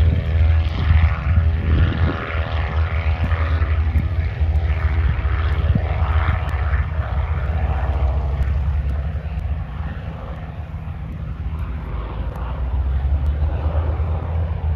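Fokker D.VII replica in flight, its Ranger 6-440 inverted inline-six engine and propeller giving a steady drone. The sound eases off around the middle and builds again near the end.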